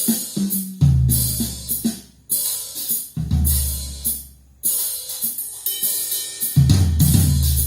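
Drum, bass and cymbal demo music played back through Infinity Kappa 7 hi-fi loudspeakers: drum-kit hits with cymbal and hi-hat on top, and long, deep bass notes coming in about a second in, again around three seconds and near the end.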